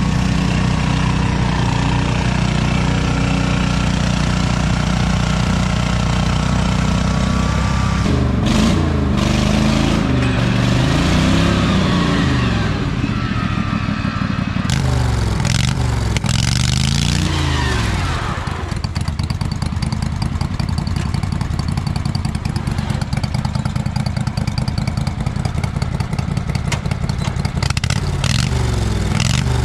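Off-road lawn tractor engine working under load. It runs steadily at first, then revs up and down repeatedly as the tractor climbs through mud and over logs. In the last part it runs with a rapid, even chug.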